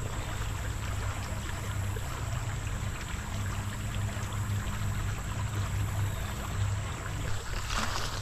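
Shallow creek water running and trickling over gravel, heard close to the surface, steady throughout over a low rumble. A few sharper, louder sounds come in near the end.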